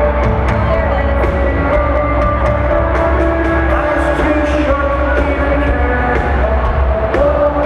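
Rock band playing live and loud, a held, sung vocal line over heavy bass and a steady drum beat.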